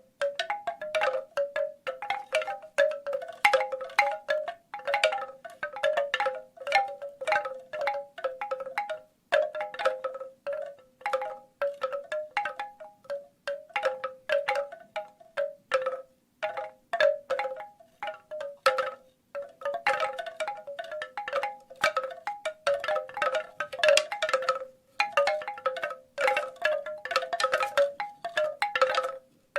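Bamboo wind chimes knocking together in irregular clusters of short, pitched clacks, a few notes mixing, with brief pauses every several seconds.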